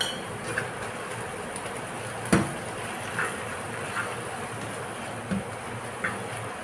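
Oil sizzling steadily in a non-stick frying pan of sweet potato leaves and garlic, while a spatula scrapes and taps against the pan about seven times; one sharp knock a little over two seconds in is the loudest.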